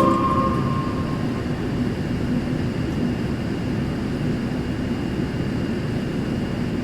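Steady running noise of a 0 series Shinkansen heard from inside the passenger car, a constant rumble without speech. The last notes of the onboard arrival chime ring out and fade in the first second or so.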